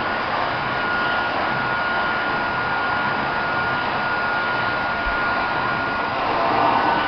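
Vacuum cleaner running steadily: an even rushing of air with a thin, high motor whine held at one pitch.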